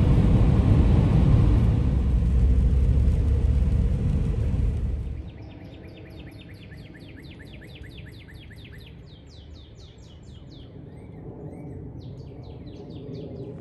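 A loud low rumble for about the first five seconds, cut off suddenly, then a songbird singing quick runs of repeated down-slurred notes, several a second, over quiet outdoor background.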